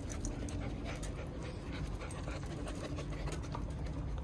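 Several dogs panting close by, with scattered faint clicks over a steady low rumble.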